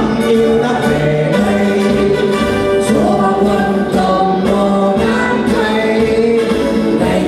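Mixed choir of men and women singing a Vietnamese song together, holding long sustained notes, with one woman's voice carried through a handheld microphone.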